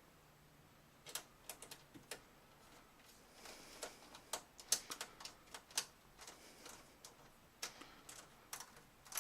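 Screwdriver driving the mounting screws of a computer power supply into the metal case: irregular sharp clicks and light scraping, thickest in the middle.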